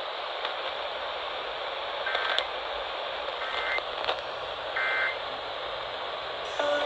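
Radio static hiss from a weather radio broadcast, with three short two-pitch data chirps about a second and a half apart: the SAME end-of-message bursts that close an Emergency Alert System warning. A voice starts near the end.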